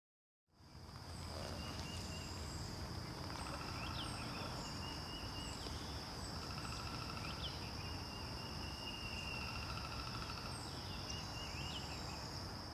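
Wetland ambience: a steady high-pitched drone, a trill that repeats about every three seconds, and a few short falling bird chirps over a low rumble.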